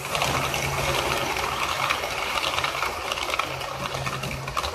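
Model railway coaches running past close by on sectional track: a steady fast clatter of small metal wheels clicking over rail joints, with a low steady hum underneath. The clatter drops away near the end as the last coach passes.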